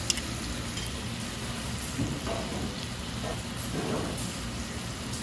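Spicy stir-fried pork sizzling on a hot iron griddle plate, with a sharp click of metal tongs against the plate right at the start and a steady low hum underneath.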